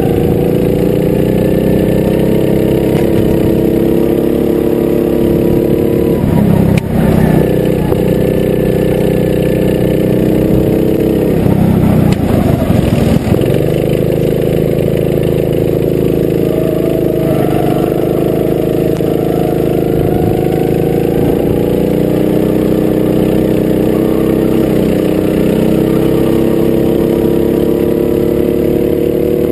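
Go-kart engine running hard under the onboard camera, its pitch rising and falling with the throttle. The pitch drops twice, about six seconds in and again around twelve to thirteen seconds as the kart slows for a tight hairpin, then climbs again.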